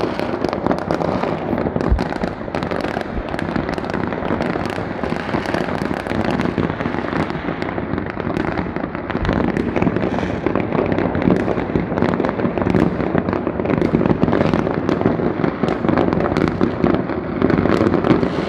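Many fireworks rockets going off at once: a continuous din of overlapping bangs, pops and crackle, with no gaps.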